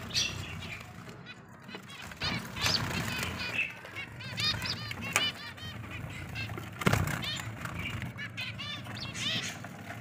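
Cage finches giving rapid runs of short, high chirps, with a single knock about seven seconds in.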